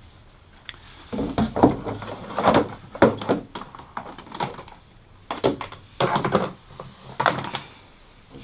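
Plastic engine-bay trim being unclipped, lifted off and handled, giving clusters of hollow clunks, knocks and scraping rattles, in three bursts.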